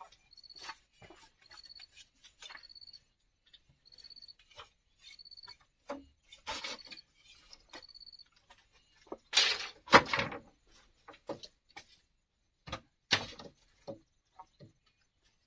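Bamboo being worked by hand: scattered taps and knocks, with a louder clatter about nine to ten seconds in and another sharp knock near thirteen seconds. A short, high peep repeats roughly once a second through the first half.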